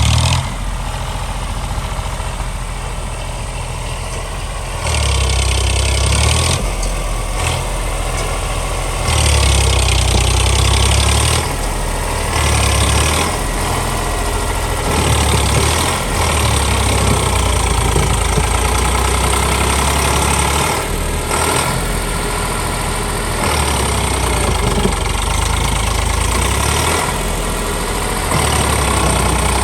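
Tractor diesel engine powering a backhoe attachment, running steadily and getting louder, then easing off, every few seconds as the load comes and goes.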